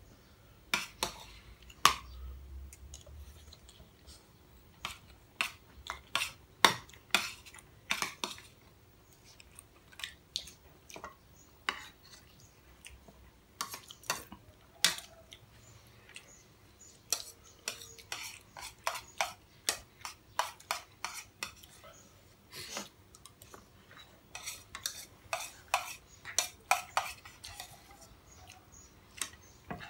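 Metal spoons clinking and scraping against ceramic bowls in irregular sharp clinks throughout, as people eat.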